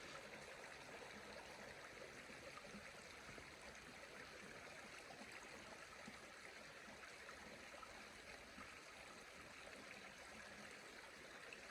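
Faint, steady rushing noise like running water, starting abruptly at a cut and holding even throughout.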